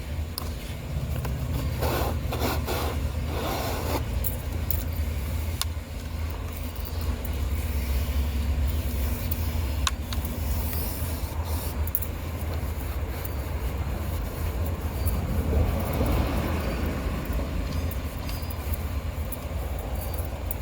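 Coin-operated car-wash vacuum running with a steady low rumble as its hose nozzle rubs and scrapes over the car's interior, with the heaviest scraping about two seconds in and again near the end.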